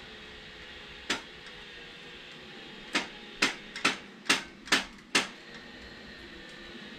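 Hammer tapping a cotter pin to drive it out of a bicycle crank arm: one sharp strike, then after a pause six more in quick succession, about two to three a second.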